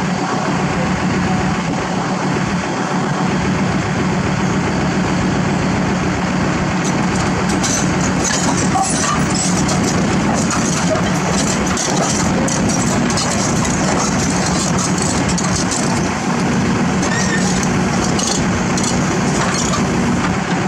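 Kobelco SK200 excavator's diesel engine running steadily as the machine crawls up the tilted steel bed of a self-loader truck. From about seven seconds in, a string of high clinks and scrapes from its steel tracks on the deck joins the engine.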